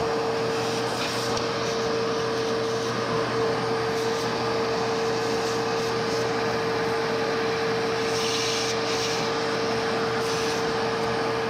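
Shop vacuum running steadily with a constant whine, its hose nozzle sucking up the dirt being dry-brushed off an engine with a toothbrush.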